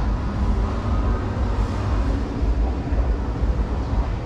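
Steady low rumble of background noise in a large indoor exhibition hall.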